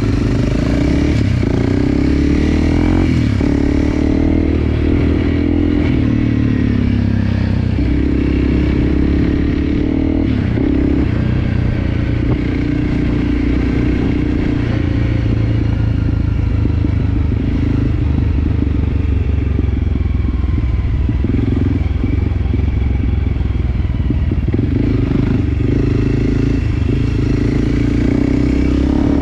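Enduro dirt bike engine running under way, its revs rising and falling with the throttle.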